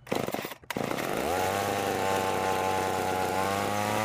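Ohlsson & Rice Compact III 21cc two-stroke chainsaw engine starting for the first time after its carburetor diaphragm was replaced. It catches within the first second and revs up, its pitch climbing, then runs steadily at high speed.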